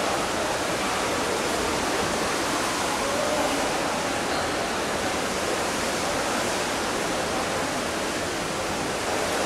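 Steady rushing hiss of water, heard through a camera submerged in a swimming pool.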